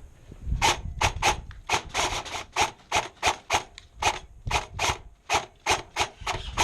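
Footsteps crunching on loose ground, about three steps a second in an uneven rhythm.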